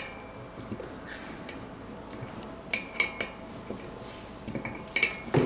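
Light metallic clinks as the T25 Torx screws are worked out of a steel mountain-bike disc brake rotor and handled. The clinks come in a small cluster about three seconds in and again near the end, some leaving a brief ringing tone.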